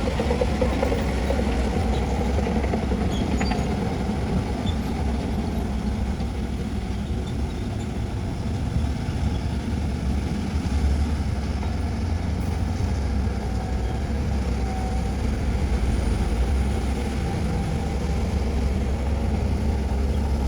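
Heavy diesel earthmoving machinery running steadily, a deep, low engine drone that swells slightly now and then.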